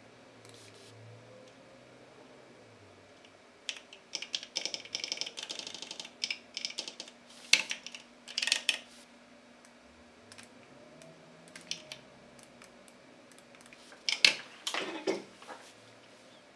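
Typing on a computer keyboard in two runs of quick key clicks: a longer run from about four to nine seconds in, and a shorter one near the end, with a few single clicks between.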